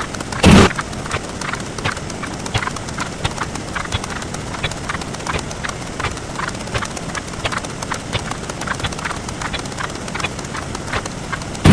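Counting-video sound effects sped up many times over: a dense, uneven run of short clicks that sounds like hoofbeats, broken by a loud short burst about half a second in and another at the very end.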